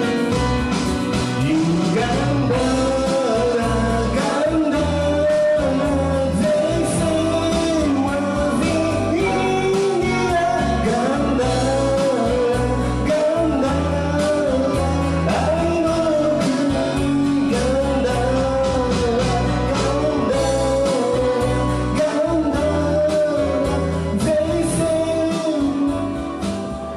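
Music: a pop-rock song with a sung melody over guitar and band backing, starting to fade near the end.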